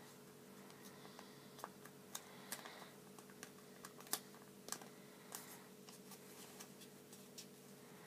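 Square origami paper being folded by hand: scattered light crackles and ticks as the paper is creased and pressed, the sharpest a little past four seconds in, over a faint steady hum.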